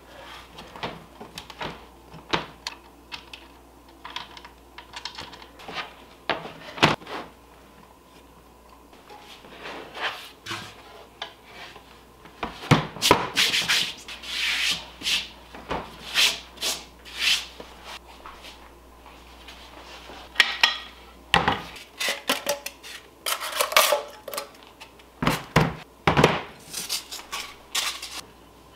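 Parts of a Hoop Master hooping station being handled: the white base board and arms slide and scrape against each other and the cutting mat, with irregular rubbing and scattered knocks and clicks as they are set down. The handling grows busier about halfway through.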